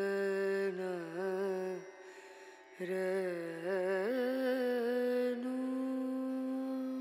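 A single voice singing a slow, chant-like melody in Indian style: long held notes joined by ornamented, wavering runs, with a short break about two seconds in and a step up to a higher held note about four seconds in.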